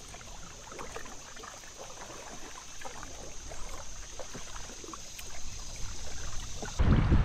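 Canoe paddles dipping and water trickling off them on a calm river, small splashes over a steady high insect drone. Near the end it cuts to a much louder rush of water with wind noise on the microphone.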